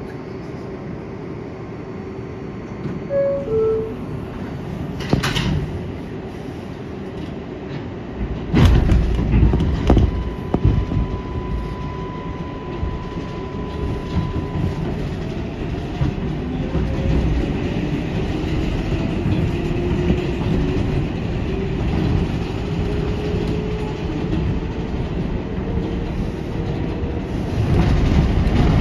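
R188 subway train pulling out of a station, heard from inside the front cab. About three seconds in, a short two-note chime is followed by a couple of sharp knocks. The train then accelerates, its motors whining in a slowly rising pitch over the clatter of wheels on the rails, growing louder near the end.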